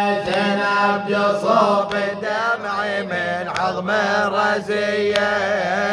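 A man chanting an Arabic lament, the voice drawn out and ornamented with wavering pitch, over a steady low drone.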